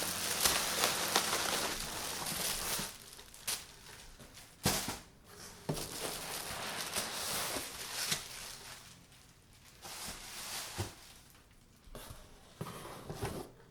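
Packaging being handled: rustling and scraping of foam inserts and plastic wrap, with a few light knocks as parts are lifted out of the box.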